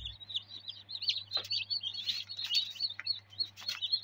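Many newly hatched chicks peeping, a dense stream of rapid high-pitched chirps, over a low steady hum, with a few light clicks.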